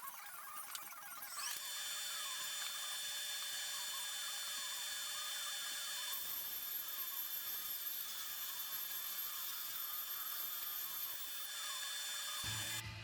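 Belt sander sanding a teak tabletop: it spins up about a second and a half in, then runs steadily with a high whine, and cuts off near the end.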